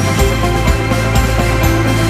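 Background music with a steady beat: an upbeat electronic-pop soundtrack.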